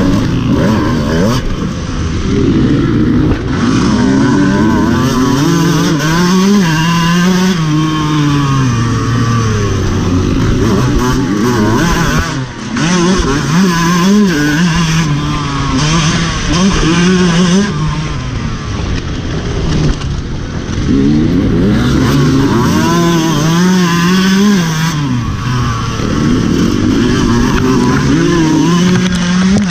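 Dirt bike engine heard from a camera mounted on the bike, revving hard and easing off again and again while riding the course, its pitch climbing and falling repeatedly.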